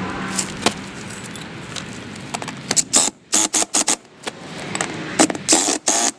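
Cordless impact driver run in several short bursts, tightening the bolts that hold a rubber snow deflector to a steel plow moldboard. The bursts come in from about two seconds in, after a low steady hum and a few small clicks.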